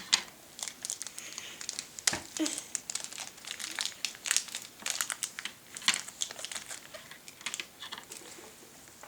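Packaging crinkling and crackling in irregular bursts as a small toy is unwrapped by hand.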